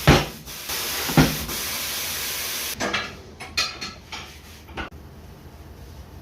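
A steady hiss of compressed air for about three seconds, broken by two heavy thuds, then a run of short metallic clinks and clanks from tyre-fitting work.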